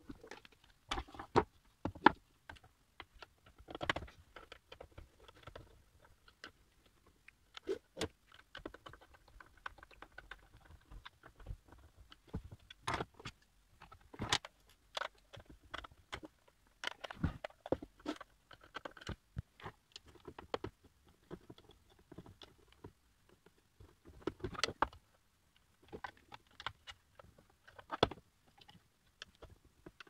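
Irregular clicks, taps and knocks as plastic electric-kettle parts and a screwdriver are handled, set down and fitted together on a tabletop.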